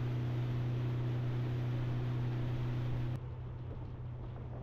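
Boat engine running steadily with a low hum under a hiss of wind and water. About three seconds in the sound drops abruptly to a quieter, duller hum.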